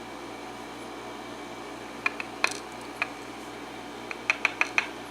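Small metal lock parts clicking and tapping against a hard surface as they are handled: a handful of light, sharp ticks about two seconds in and a quicker run of them about four seconds in, over a steady fan-like hum.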